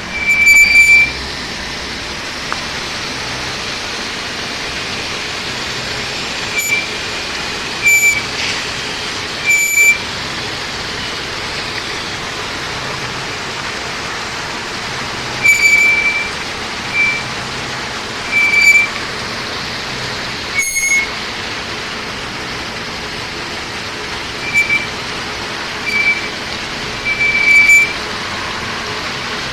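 Spiral classifier running while washing coal slime: a steady machinery-and-water noise, broken every few seconds at irregular intervals by short, loud, high-pitched squeaks.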